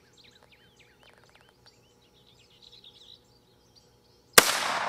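Birds chirping, then, about four and a half seconds in, a single sharp shot from a Henry lever-action rifle in .17 HMR, its report trailing off over a second or so.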